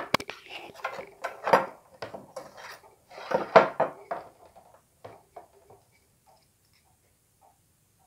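Thin laser-cut metal frame plates for a model locomotive clinking and clattering against each other and the table as they are handled and laid down. The clatter is busy for the first four seconds or so, then dies away into near silence with a few faint ticks.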